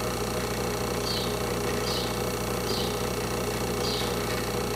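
Steady hum of a small fume extractor fan running at the soldering bench, with faint short high chirps about once a second.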